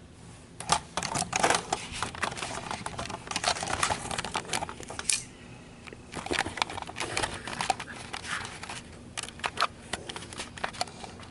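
Close rustling and scratching of a knitted sweater being handled while its shoulder buttons are done up. It comes in two irregular spells with a short lull around the middle.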